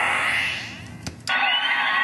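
American Audio Soundboy sound-effects unit playing its sampled effects: a rumbling noise effect dies away over the first second, two short clicks follow, and about 1.3 s in a crowd-cheering effect with whistled whoops starts.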